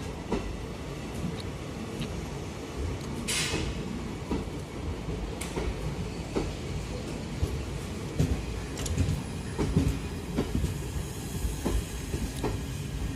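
Passenger train coaches rolling past along the platform, with a steady rumble and irregular knocks and clacks from the wheels and couplings. A brief sharp burst of high noise comes about three and a half seconds in.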